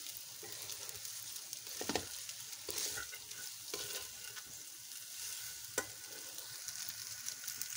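Boiled fusilli pasta and chicken cubes sizzling in a steel pan over medium heat, stirred with a silicone spatula. There is a steady sizzle, with a few short scrapes and knocks of the spatula against the pan.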